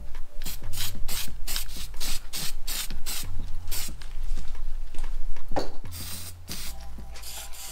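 Aerosol can of primer spraying onto bare metal, hissing in a quick run of short bursts, then in longer passes near the end, over a low steady hum.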